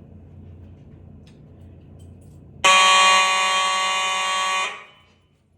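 Fire alarm horn sounding one loud, steady blast of about two seconds, starting abruptly about halfway through and then cutting off with a short echoing tail.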